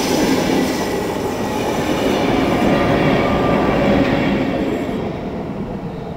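Passenger train passing at speed close by: a loud rush of wheels on rails and coaches going past, fading from about four and a half seconds in as the last car passes and moves away.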